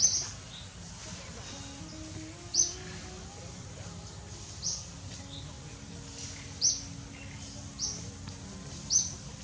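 A bird calling: a short, high, downward-sweeping chirp repeated about every two seconds, six times in all, over a steady low background.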